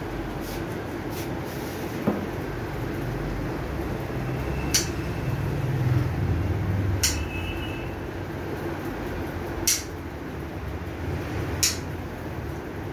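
Dog nail clipper cutting a Labrador's claws: short, sharp clicks about every two to three seconds, over a steady low rumble.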